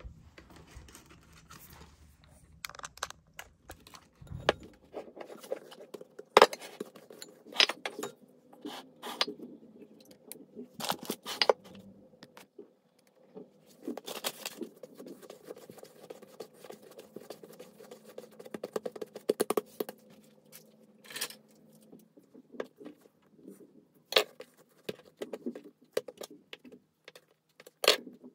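Irregular clicks, taps and scrapes of things being handled in a kitchen, with a few sharper knocks, over a faint steady hum.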